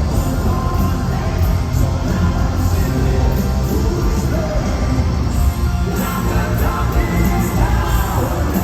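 Live rock band playing loud and heavy, with drums, distorted guitars and bass, and a lead vocal singing over it, as heard on a phone recording from the audience.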